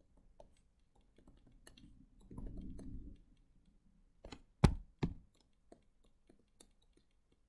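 Faint tapping of a stylus pen on a tablet screen while writing, with a brief low murmur partway through and two sharp clicks close together past the middle.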